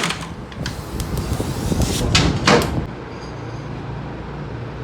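Motorcycle engine running with a steady low hum, broken by a few sharp clacks about two seconds in.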